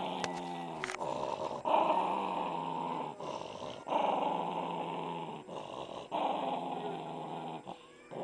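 Small dog growling angrily: about five long, continuous growls of a second or two each, broken by short pauses for breath.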